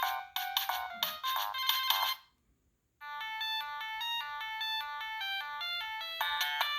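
Polyphonic ringtones playing from a Siemens C72 mobile phone's speaker, thin and without bass. One melody fades out about two seconds in, and after a second of silence the next tune begins, growing busier near the end.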